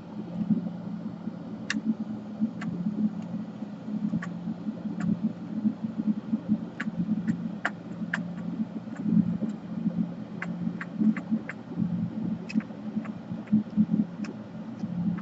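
Steady low hum with light, irregular clicks and ticks from small tools and parts being handled on a laptop's opened motherboard.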